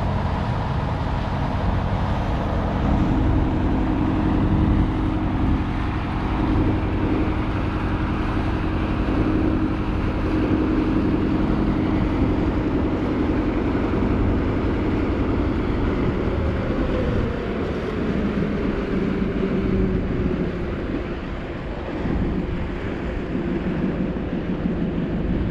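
Engine of a small wooden river motorboat running steadily, with the wash of water along the hull.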